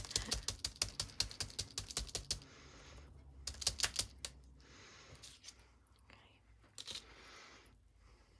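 Round foam sponge dabbing paint through a plastic stencil onto crumpled packaging paper: a quick run of soft taps, several a second, that thins out after about two and a half seconds to a few scattered dabs and faint rubbing.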